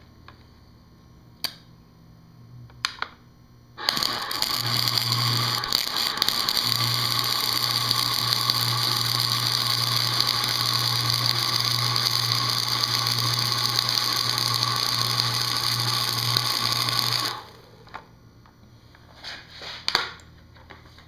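MIG welder run at 65 amps off a modified sine wave inverter, welding a thin steel saw blade: the arc crackles and sizzles steadily for about thirteen seconds with a low buzz underneath, starting about four seconds in and cutting off abruptly. The weld is too hot for the thin blade and burns through it. A few sharp clicks come before and after the arc.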